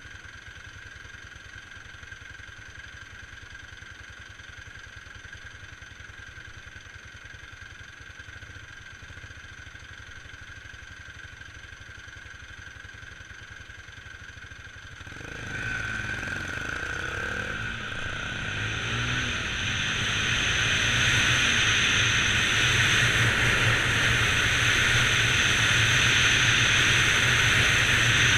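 Bajaj Pulsar 200 NS motorcycle's single-cylinder engine idling steadily. About halfway through it pulls away and accelerates, the sound jumping up and then climbing to a loud, steady rush of noise.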